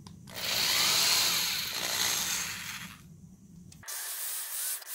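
Cordless drill boring a screw hole into a ski's plastic top sheet, the bit cutting quickly through the plastic. It runs for about two and a half seconds, then dies away.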